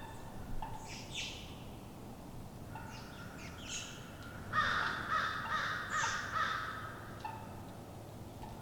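Crows cawing in a series of harsh calls, the loudest run about halfway through, over quiet woodland background.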